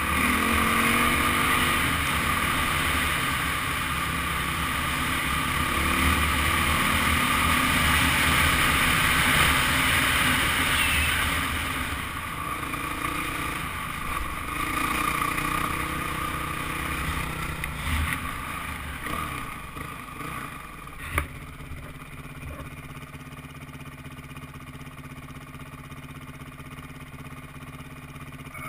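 Dirt bike engine running under the rider as the bike is ridden along a dirt trail, loudest over the first twelve seconds and then easing off. A single sharp knock about two-thirds of the way through, after which the engine runs lower and quieter.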